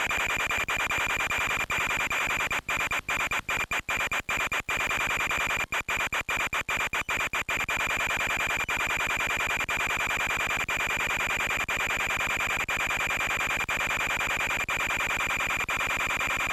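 Harsh, steady radio static with a fixed high-pitched whine, broken by a run of brief dropouts a few seconds in. This is the noisy audio of an FPV video link.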